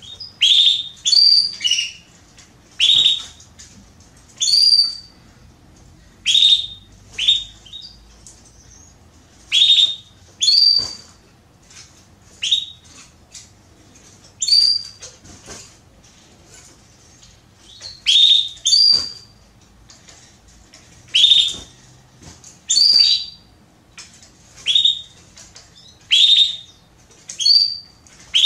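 Female Belgian canary giving short, sharp chirping calls, repeated about every one to two seconds and sometimes in quick pairs: the calls of a hen soliciting a mate.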